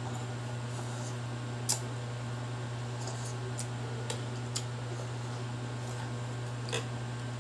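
A metal spoon clinks against a bowl as a toddler eats noodles: a few sharp clicks, the loudest about two seconds in, over a steady low hum.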